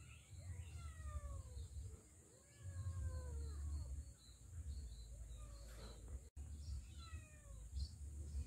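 An animal calling three times, each a short call that falls in pitch, over a low intermittent rumble.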